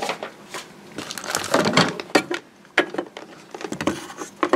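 Irregular clicks and rustling as a digital multimeter and its test leads are handled and moved into place.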